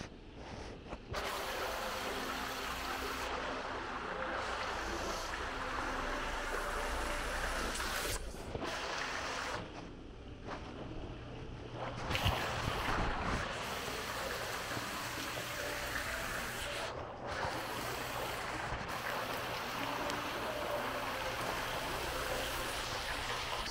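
Indoor mall fountain: water splashing steadily into its basin as a continuous rushing hiss, dropping away briefly a few times.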